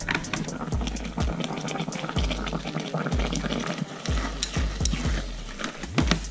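Food frying in a hot pan, a dense steady crackle, with dull low thumps about every second.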